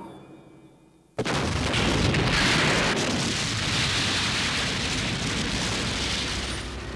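Animated explosion sound effect: a sudden loud blast about a second in, followed by a long, dense rumble of the explosion that slowly dies down.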